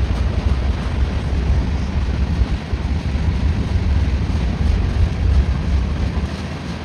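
Heavy Union Pacific freight train rolling past as it climbs the grade, a steady low rumble of the train on the rails.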